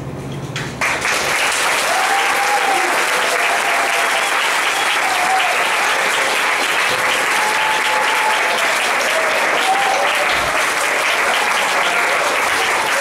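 Audience applauding, beginning about a second in and holding steady, with a few voices audible through the clapping.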